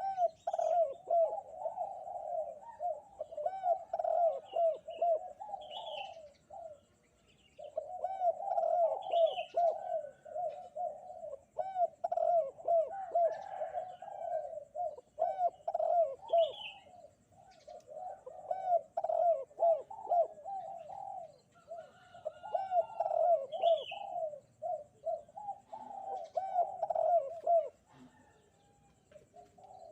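Spotted dove (derkuku) cooing over and over in long runs of low coos, breaking off briefly about seven seconds in and again near the end. A few faint higher chirps from other small birds come now and then.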